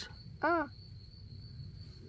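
Crickets trilling: a steady, thin, high-pitched tone. About half a second in, a brief rising-and-falling voice sound cuts in over it.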